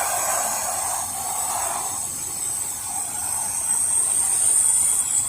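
Steady high-pitched hiss of water jetting from a pressure-washer spray nozzle while a house exterior is washed and rinsed.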